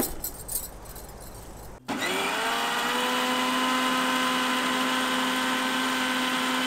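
Electric mixer grinder grinding grated coconut, dried red chillies, fennel, cumin and garlic with a little water into a paste. After a few faint knocks from the jar being handled, the motor starts about two seconds in, rises quickly in pitch and then runs with a steady whine.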